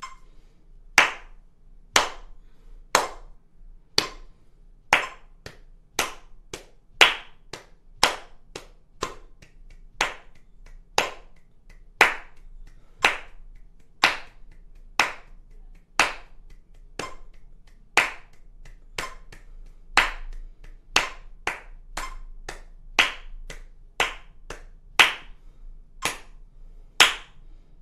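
Hand claps in a steady pulse of about one beat a second. The number of claps per beat steps up from one to four and then back down, a rhythm-switching exercise.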